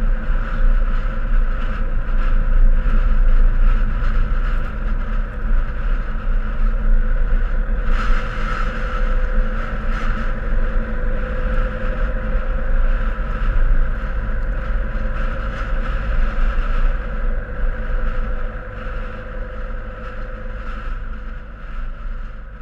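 Wind buffeting an action camera's microphone over the steady engine and tyre noise of a vehicle driving along a road. There is a brief louder gust of noise about eight seconds in, and the sound fades away near the end.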